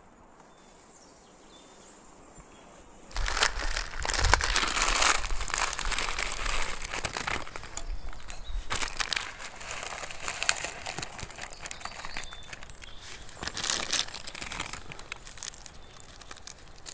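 Loud, dense rustling and crinkling with many sharp crackles, starting abruptly about three seconds in after near quiet.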